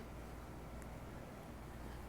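Quiet room tone: a faint steady low hum and hiss, with no distinct event.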